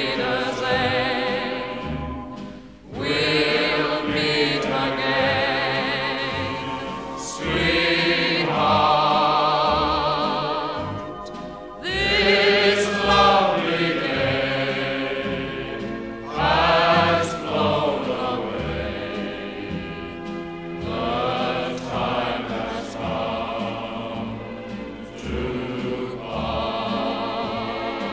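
Background music: an old-style popular song with a choir singing sustained, vibrato-rich phrases over an orchestral accompaniment.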